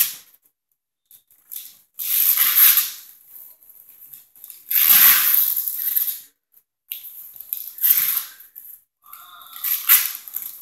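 Wrapping paper being torn and crinkled off a present, in about four separate rips with short pauses between. A brief pitched sound, likely a child's voice, comes just after 9 seconds.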